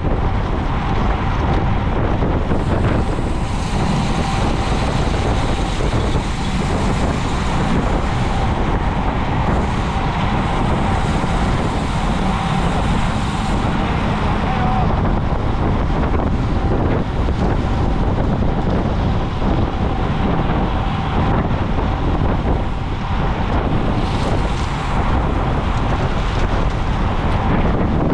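Steady, loud wind rushing over a bike-mounted action camera's microphone as it moves at race speed in a cycling pack.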